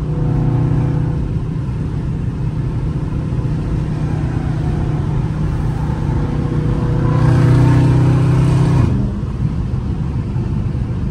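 Dodge Charger Scat Pack's 6.4-litre HEMI V8 cruising at highway speed, heard from inside the cabin as a steady low drone over road noise. About seven seconds in it swells louder for a couple of seconds, then drops back abruptly.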